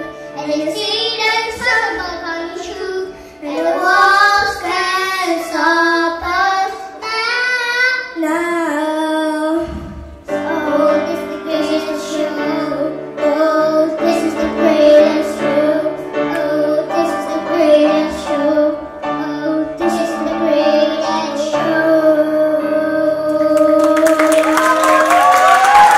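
Two children, a girl and a boy, singing a duet to grand piano accompaniment, ending on a long held note. Applause starts a couple of seconds before the end.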